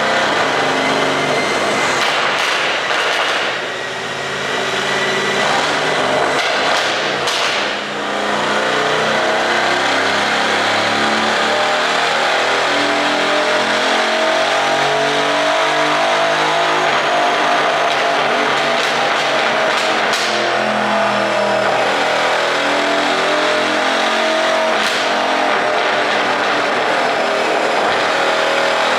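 Mercedes-AMG GT C's twin-turbo V8 running hard under way, its pitch slowly rising and falling. A tuned ECU makes the exhaust give a few sharp pops, the first couple coming in the first eight seconds and a few more later on.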